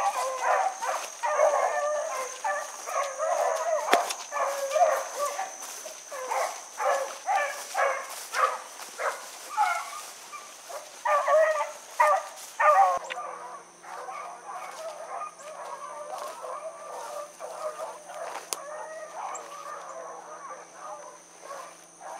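A pack of rabbit hounds baying together while running a rabbit, many voices overlapping, loudest in the first half. About halfway through a steady low hum starts, and the baying goes on more quietly over it.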